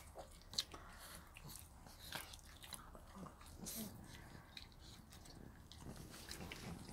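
A Shih Tzu chewing a thinly sliced chewy treat: faint, irregular crunching bites.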